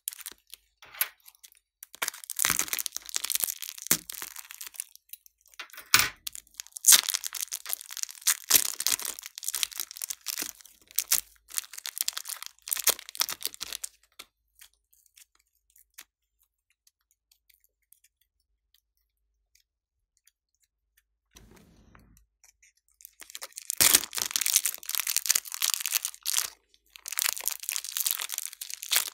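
Thin clear plastic piping bags of soft clay crinkling and crackling as hands squeeze and pull them open to push the clay out. The sound goes quiet for several seconds around the middle, then starts again.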